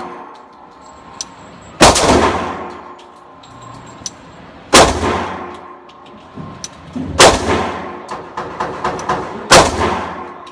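Kimber 1911 pistol fired four times, slow, single shots roughly two and a half seconds apart, each crack ringing off inside an indoor range booth.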